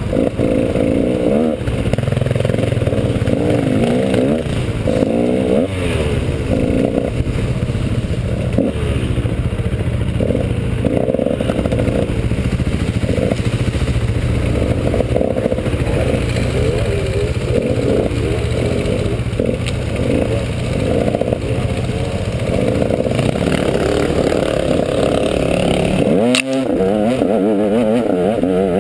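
KTM 150 XC two-stroke dirt bike engine being ridden hard, its pitch rising and falling continually as the throttle is worked. About two and a half seconds before the end there is a sharp knock and a brief dip in the engine note.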